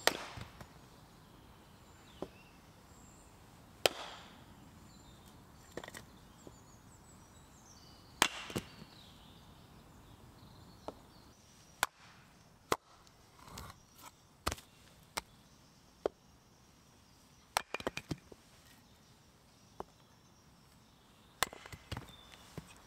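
An axe splitting firewood logs set on a stump chopping block: sharp wooden knocks and cracks at irregular intervals, a few seconds apart at first and coming closer together later on.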